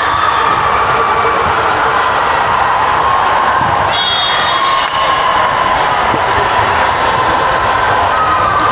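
Volleyball gym din: a steady wash of many voices and court noise, with balls bouncing and being hit on the hardwood floor and thin squeaking tones coming and going.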